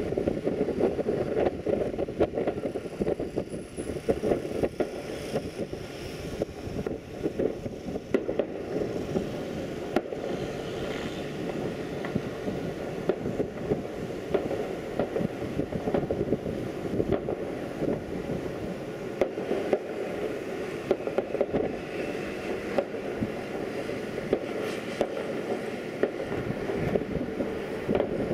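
Wind buffeting the microphone in a steady low rumble, broken throughout by many short, irregular thumps and pops.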